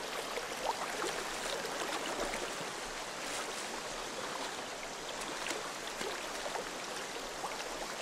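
Shallow river water rushing steadily over rocks, with small splashes as stones of an eel weir are lifted out of the current by hand.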